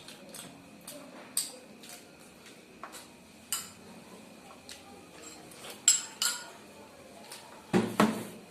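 Spoons clinking and scraping against plates during eating, a few sharp clicks scattered through, with a heavier knock near the end.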